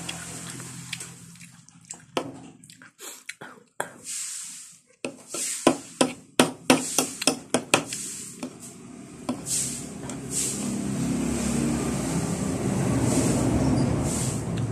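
Close-miked eating sounds: a quick run of wet chewing and smacking clicks between about two and nine seconds in. Then a low rumble swells toward the end.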